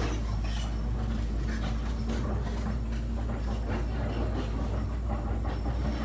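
A steady low machine drone with a constant hum, overlaid by irregular light clicks and knocks as a new rubber cushion damper (flexible coupling insert) is pressed and worked into the engine's flywheel.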